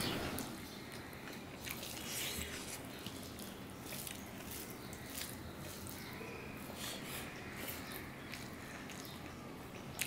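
A person chewing a soft mouthful of rice and okra in mustard sauce, with wet mouth clicks and smacks, while fingers squish and mix rice on a steel plate. A sharper click comes near the end.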